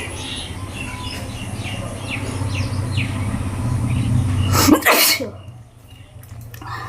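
One loud sneeze a little under five seconds in, during a run of deliberate sneezing. Small birds chirp throughout, over a steady low hum that stops right after the sneeze.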